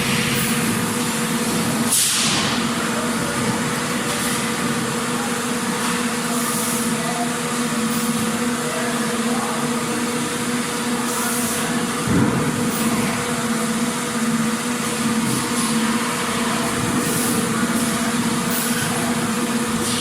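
Factory machinery running: a steady hum in two tones over a dense mechanical din, with short hisses every few seconds and a single heavier knock partway through.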